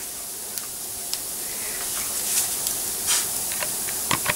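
Breaded chicken goujons frying in a non-stick pan: a steady sizzling hiss with scattered small pops and crackles.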